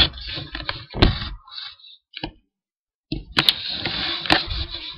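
Handling noise from a webcam being moved about: scattered knocks, clicks and rustling, cut by a moment of complete silence a little after two seconds in.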